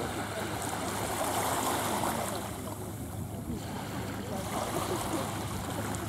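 Small sea waves washing on the shore, a steady rushing wash, with indistinct distant voices of people on the beach.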